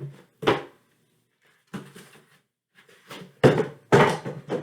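A handful of short, dull knocks and thumps, about five, unevenly spaced, with the loudest two close together near the end.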